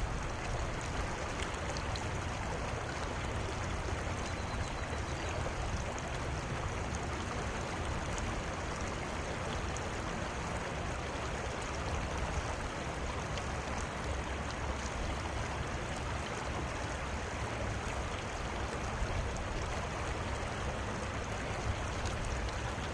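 Steady rush of a shallow river flowing over stones, with a low rumble underneath.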